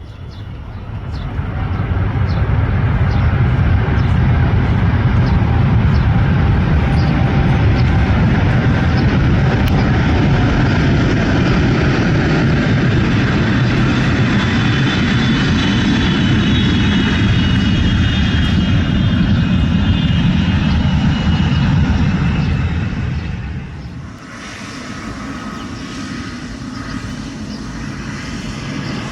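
Boeing 777-300ER's twin GE90 turbofans running at close range, a loud, deep jet roar. It swells in about a second in and holds steady with a faint high fan whine. About 24 seconds in it drops sharply to a quieter roar.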